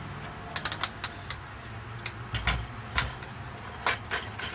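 Irregular light metallic clicks and clinks of hand tools and bolts being handled, over a low steady hum.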